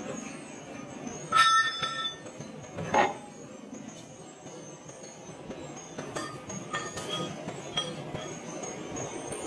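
Metal striking metal as hot iron forging pieces and tongs knock against a heavy iron die. About a second and a half in there is one loud clang that rings for about half a second, then a single sharp knock about three seconds in. From the second half onward come a series of lighter clinks.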